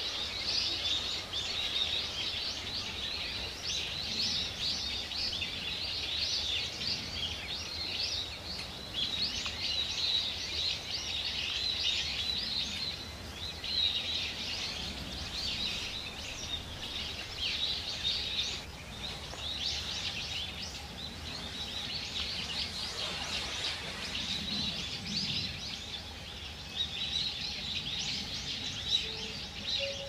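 A flock of Japanese white-eyes calling: a dense, continuous stream of thin, high chirps, several a second, over a faint background hiss.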